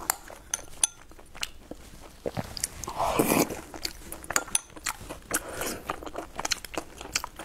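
A person eating: chewing and biting, with many short sharp clicks and light clinks of a metal spoon against a glass bowl.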